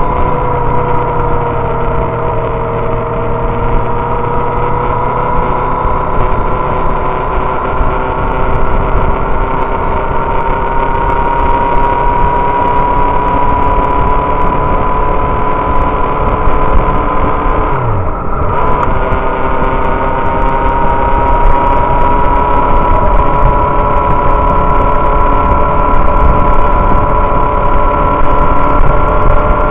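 Inline-four 600 cc sport motorcycle engine running at highway cruising speed, heard from on the bike. Its note climbs slowly, dips and breaks briefly about 18 seconds in, then steadies and climbs again.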